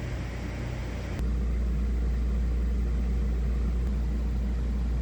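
Air conditioners running with a steady hum and fan noise. About a second in there is a click, and the sound changes abruptly to a louder, steady low hum with less hiss.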